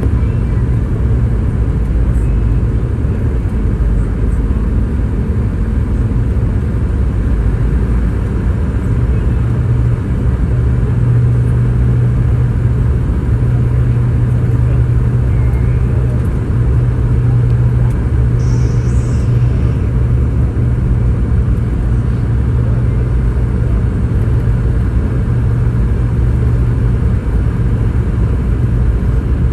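Boeing 717 cabin noise: a steady low rumble from its rear-mounted Rolls-Royce BR715 turbofans and the rushing air, with a constant low hum, heard from inside the cabin.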